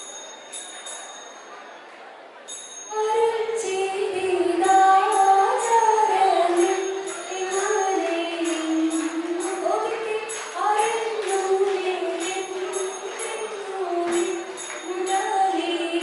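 A dance song: a melodic female singing voice over a steady, high jingling beat. For the first three seconds only the jingling is heard, then the voice comes in.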